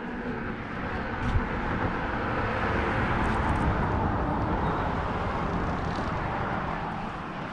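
A road vehicle passing on a highway: tyre and engine noise swells to a peak a few seconds in, then slowly fades.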